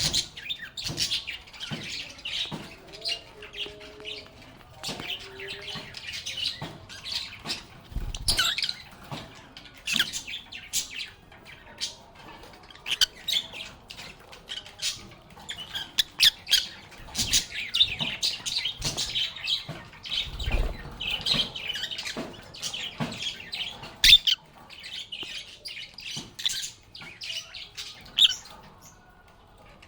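A flock of lovebirds chirping and chattering without pause: a dense stream of short, high chirps with occasional sharper squawks. A couple of low, dull bumps come partway through.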